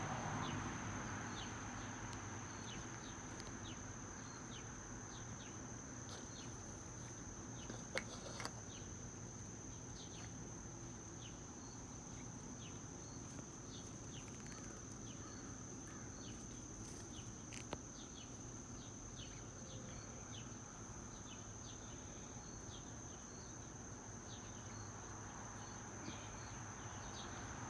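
Insects, cricket-like, trilling in one steady high tone, with faint short chirps scattered over it and a couple of brief clicks.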